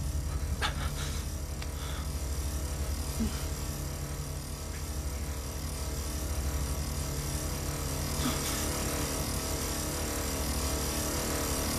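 Car engine idling, heard from inside the cabin as a steady low hum, with a couple of faint soft rustles about a second in and again near eight seconds.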